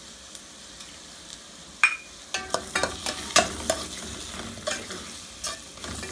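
Onions and tomatoes sizzling faintly in a stainless steel pan as they sauté. About two seconds in, a metal spoon clinks once against the pan with a short ring. From then on the spoon scrapes and clicks against the pan again and again as the mixture is stirred.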